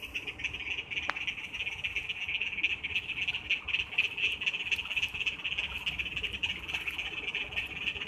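A dense chorus of frogs calling, a continuous fast trilling, over the low steady rush of floodwater running across the road.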